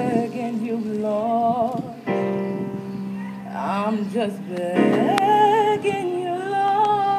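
Live musical theatre singing: voices hold long notes with vibrato over a sustained accompaniment chord, with new sung phrases entering about two seconds in and again about five seconds in.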